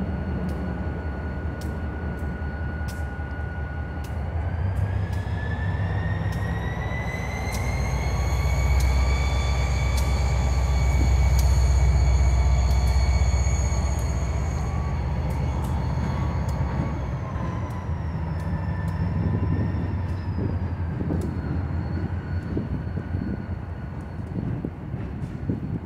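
Susquehanna (NYSW) diesel-electric locomotive throttling up as it pulls away: its engine rumble swells and a high whine rises in pitch about four seconds in. The whine holds, then drops back in two steps near the end as the throttle eases off.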